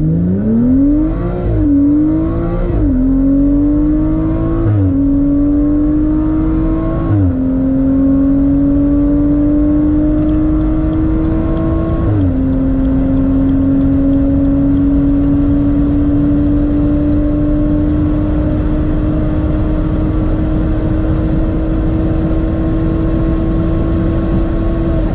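BMW M135i's N55 turbocharged straight-six accelerating hard through the gears of its ZF eight-speed automatic. The engine note climbs, then drops at each quick upshift, five times in the first twelve seconds, then holds a long, slowly rising pull in a high gear.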